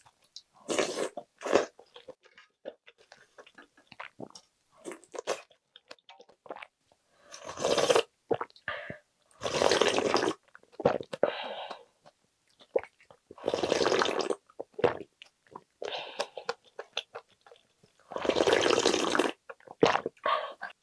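Loud slurping of budae-jjigae broth, rice and noodles from a spoon and, about halfway through, straight from the rim of the pot. There are several slurps of about a second each, with chewing between them.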